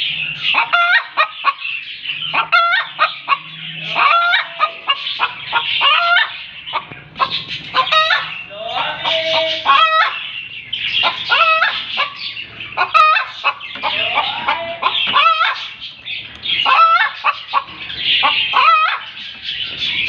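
Hen cackling over and over, the loud 'egg song' a hen gives after laying an egg, with sharp calls repeating every second or so.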